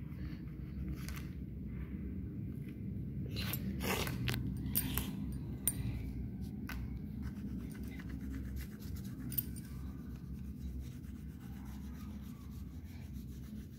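Crayon rubbing and scratching back and forth on craft paper as a child colours in, with scattered sharp clicks and taps, most of them between about three and seven seconds in, over a low steady rumble.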